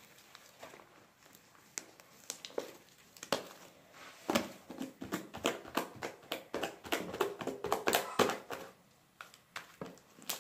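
Foamy white slime being stretched and squeezed by hand, giving a run of sticky pops and crackles that come thickest from about four to eight seconds in.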